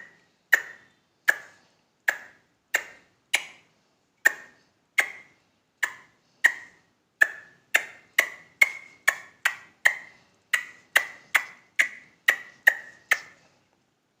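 A man imitating the call of the white-breasted waterhen (dahuk) with his voice: a long run of short, sharp, repeated notes, about one and a half a second. The notes quicken to about two a second partway through and stop shortly before the end.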